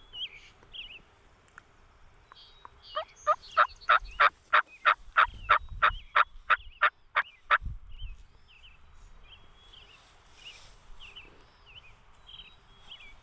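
Turkey yelping: a steady run of about sixteen loud yelps, three or four a second, lasting about four and a half seconds. Small songbird chirps follow.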